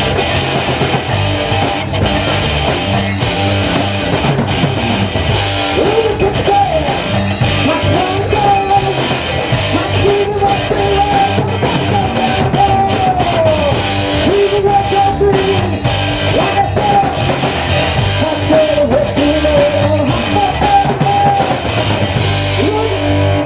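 A small rock band playing a song live, with electric guitar and drum kit, and a voice singing a melody from about six seconds in.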